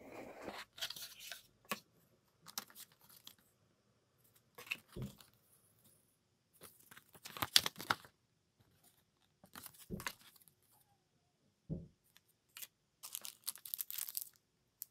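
Unboxing sounds from a fountain-pen box: a paper leaflet and the cellophane wrapping of ink cartridges rustling and crinkling in short bursts, with three dull knocks of the cardboard box being handled.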